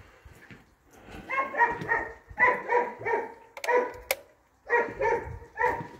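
Doberman dogs barking in a rapid run of short, repeated barks, starting about a second in and going on in clusters. Two sharp clicks come in the middle.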